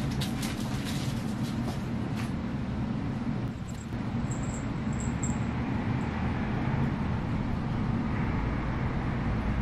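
Quick footsteps of slippers on a wooden floor for about the first two seconds, over a steady low rumble that runs on after them.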